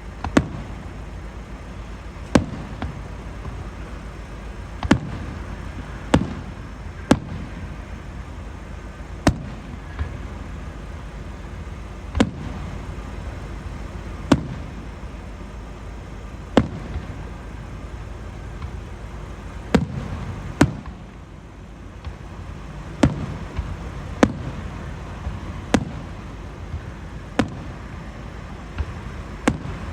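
Fireworks going off: a string of sharp bangs at irregular intervals, roughly one every one to two seconds, each trailing a short low echo, over a steady low rumble.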